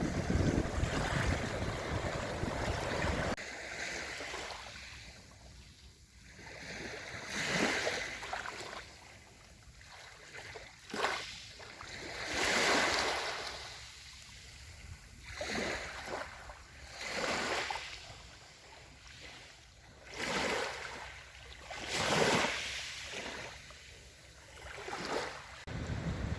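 Sea waves breaking and washing in, one swell after another about every two seconds. For the first few seconds wind buffets the microphone with a low rumble, which stops abruptly.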